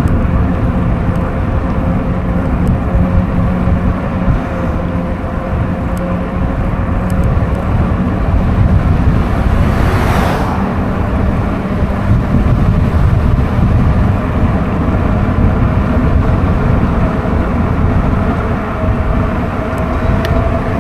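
Wind buffeting the microphone of a moving e-bike, with a steady whine from the bike's motor. About halfway through, a car passes with a rush of tyre noise on the wet road.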